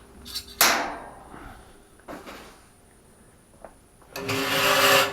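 A wooden shelf board being knocked and pushed into place on metal track-shelving brackets: a sharp knock about half a second in, a few lighter knocks, then about a second of scraping near the end as the board is forced along the brackets.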